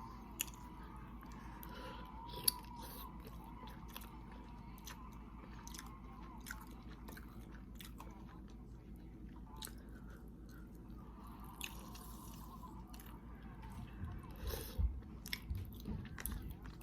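Close-up mukbang chewing and eating: scattered short wet clicks and mouth smacks, growing busier near the end.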